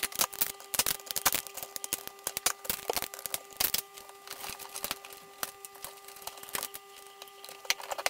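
Irregular plastic clicks and knocks of hands working a dishwasher's wash pump motor loose from its plastic housing, over a faint steady hum.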